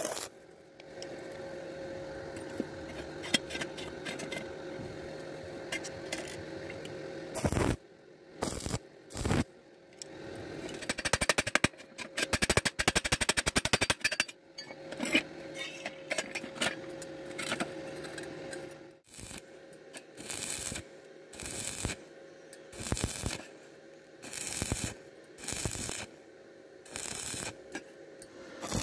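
Stick welding arc crackling and hissing steadily on thin-walled steel tube, broken about halfway by a quick flurry of light hammer taps chipping slag off the weld. The arc then runs again, and near the end it comes in short bursts about once a second.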